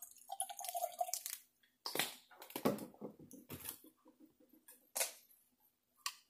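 Blackberry drink flavouring poured into a glass pitcher of limeade: liquid splashing and dripping in a series of short bursts, with a few clicks and knocks.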